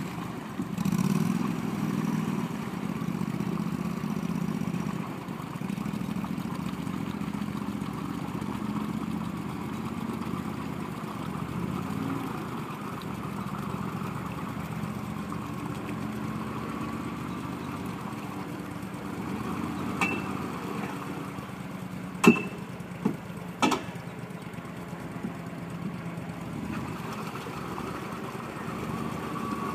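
Argo amphibious ATV's engine running steadily at low speed, a little louder in the first few seconds. Four sharp knocks come in quick succession in the last third, the loudest about two-thirds of the way through.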